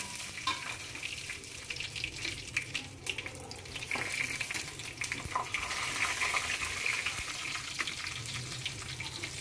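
Whole spices (bay leaves, cinnamon, cardamom, dried red chillies, cumin and black peppercorns) sizzling and crackling steadily in hot oil in a kadai, with the occasional scrape of a spatula.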